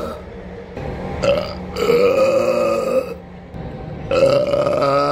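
A man burping loudly: a short burp about a second in, a long drawn-out burp right after it, and another long burp starting near the end.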